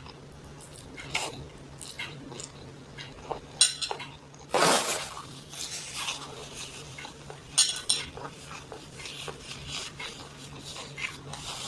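Eating utensils clinking and scraping against dishes in scattered short strokes, with a louder scrape about five seconds in and another near eight seconds.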